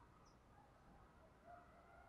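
Near silence, with only faint bird chirps in the background.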